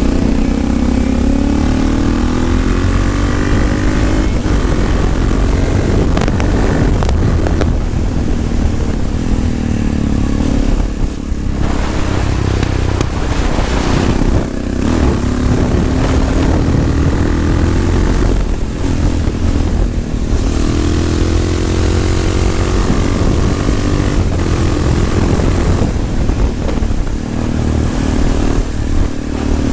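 2004 Yamaha XT660R's single-cylinder four-stroke engine through a Leovince exhaust, pulling hard through the gears: the pitch rises again and again, with brief drops when the throttle closes for the shifts.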